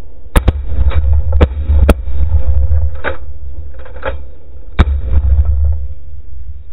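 Shotguns fired by several hunters at geese overhead: a ragged volley of sharp reports, four in the first two seconds and another near five seconds, with fainter shots between. Wind rumbles steadily on the microphone throughout.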